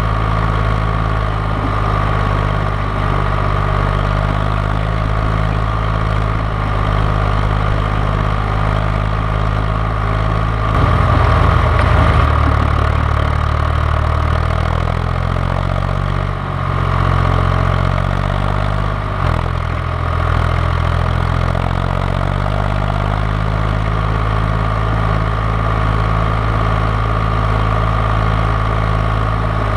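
John Deere 1130 tractor's three-cylinder diesel engine running steadily. About eleven seconds in it gets briefly louder and its engine speed changes, then it settles back to the same steady note by about twenty-two seconds in.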